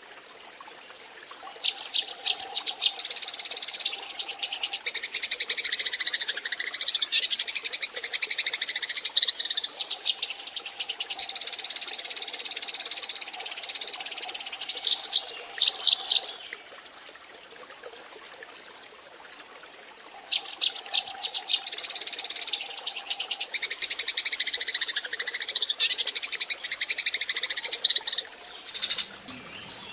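Eurasian tree sparrows chattering: dense, rapid chirping in two long spells, the first about fourteen seconds long and the second about eight, with a quieter pause between them.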